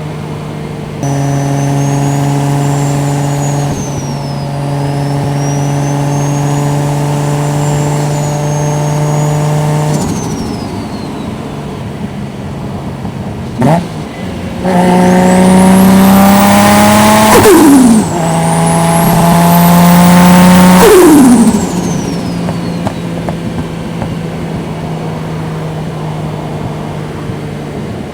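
Toyota Soarer's turbocharged 1JZ-GTE VVTi straight-six at a steady highway cruise, then a quick throttle blip and two short pulls. On each pull the engine note climbs with a high rising turbo whistle, and each lift-off ends in a sharp drop in pitch with turbo flutter, before the engine settles back to cruising.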